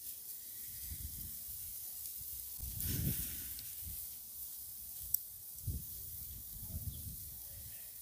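Raw ground-beef patty sizzling on a hot charcoal grill grate: a steady hiss, with a low rumble about three seconds in and a few light ticks.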